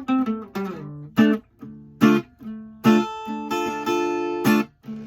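Acoustic guitar playing a song's intro: a short run of single plucked notes stepping down in pitch, then strummed chords about once a second.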